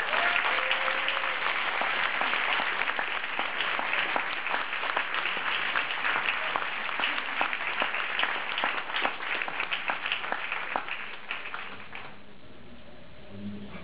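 Crowd applauding with many hands clapping, dying away about twelve seconds in.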